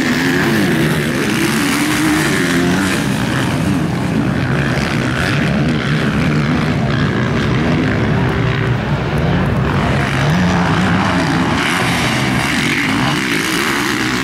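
Motocross bikes racing on a dirt track, their engines revving up and down repeatedly through throttle changes and gear shifts.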